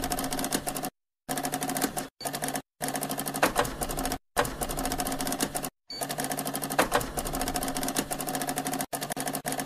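Typewriter sound effect: fast, clattering keystrokes in runs of about one to three seconds, broken by short silent pauses, over a steady hum.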